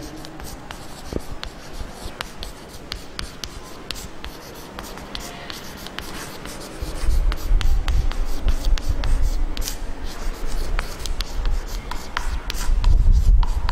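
Chalk writing on a blackboard: scratchy strokes and frequent sharp taps of the chalk on the board. A low rumble comes in about halfway through and is loudest near the end.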